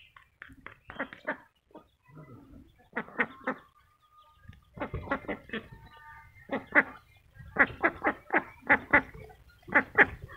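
Domestic ducks quacking repeatedly in short, quick runs while feeding on grain. The calls come in clusters and grow busier and louder in the second half.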